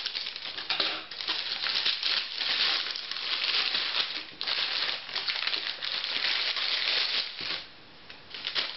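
Plastic postal mailer bag crinkling and rustling as it is cut open with scissors and handled, a clear plastic pouch pulled out of it. The rustling is nearly continuous and stops shortly before the end.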